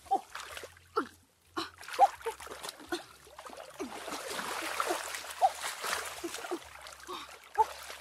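Water splashing and trickling, with a few sharp splashes and a steadier rush of water about halfway through, while puppies whimper in short high calls.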